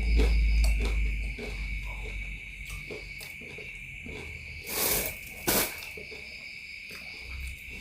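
Crickets chirring steadily at night, with a low rumble at the start that fades and two short noisy rustles about five seconds in.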